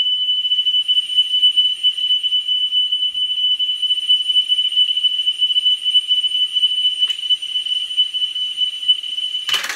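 A 3 kHz test tone played back from cassette tape on a Pioneer CT-W205R deck, a steady high-pitched beep wavering slightly in level while the tape-head azimuth is adjusted. The tone cuts off with a clunk near the end.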